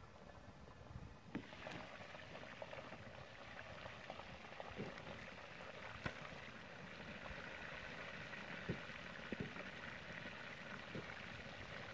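Chicken pieces frying in hot oil: a faint steady sizzle that grows louder about a second in, with occasional small pops.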